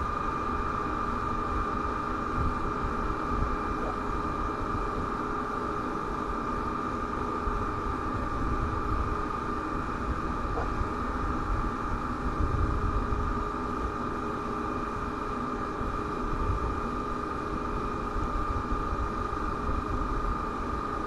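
Steady background noise from an outdoor nest-camera microphone: an even hiss with a constant high whine and a low rumble that swells and fades, loudest a little past the middle. No eagle calls.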